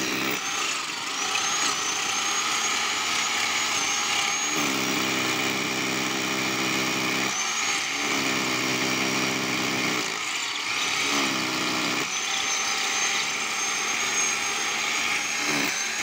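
Handheld electric angle grinder running continuously with a high whine. Twice, from about four and a half seconds and again from about eight seconds in, the tone turns lower and fuller for a few seconds as the disc cuts into the brickwork, then it runs free again.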